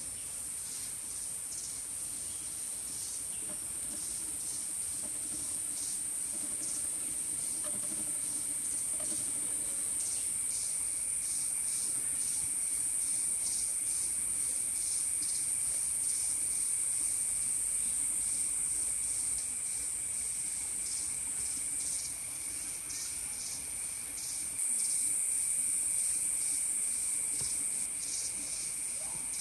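Dense insect chorus: a steady high-pitched drone with fast pulsing calls over it, joined about eleven seconds in by a second, lower-pitched insect drone, and growing louder near the end.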